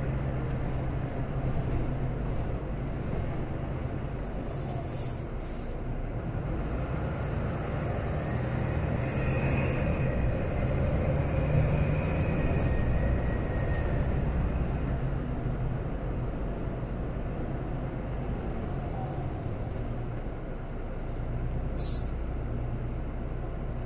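Volksbus 18.280 OT city bus heard from inside the passenger cabin: its rear-mounted diesel engine running steadily as the bus drives along, with a few short clicks and rattles from the cabin.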